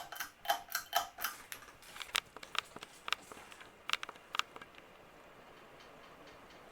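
Vintage Palm Air ceiling fan running on high speed, with a string of light clicks and rattles that come quickly at first and thin out over about four seconds, then a faint steady whir.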